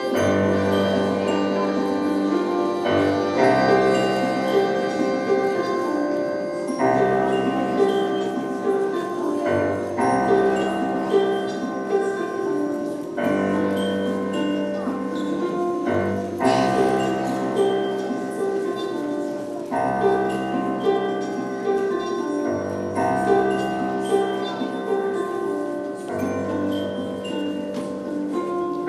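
Concert harp and electric keyboard playing a slow instrumental passage, with held bell-like chords changing about every three seconds.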